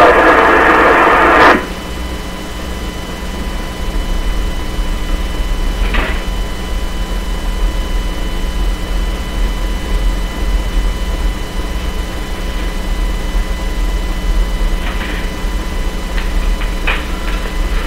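Air-band radio channel with no one talking: a loud burst of radio noise cuts off about a second and a half in. Then comes a steady hiss and hum with a few faint clicks.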